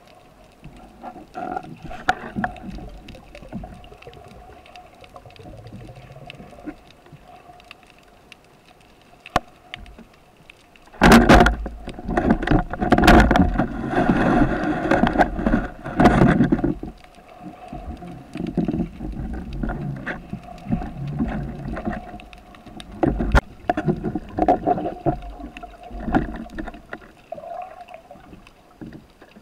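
Underwater sound picked up through a camera's waterproof housing on a breath-hold spearfishing dive: a steady faint drone with scattered clicks. About eleven seconds in comes a loud stretch of rough, rushing noise lasting some six seconds.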